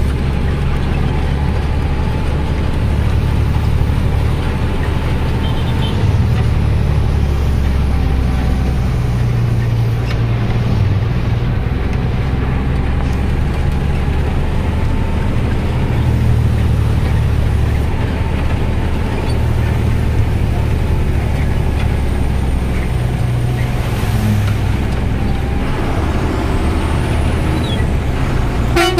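Truck engine running steadily under way, a low, even drone with road noise, heard from inside the cab.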